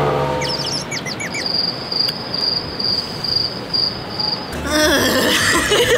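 Crickets-chirping sound effect: after a few quick bird-like chirps, a single high cricket chirp repeats about twice a second for around three seconds. It is the stock cue for an awkward silence. A warbling music cue comes in near the end.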